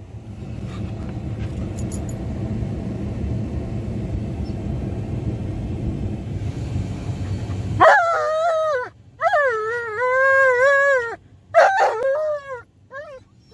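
A low steady rumble for the first eight seconds or so, then a husky-type dog howling and whining in about five drawn-out calls that waver up and down in pitch. The dog is protesting at being shut behind a cargo barrier in the back of a truck.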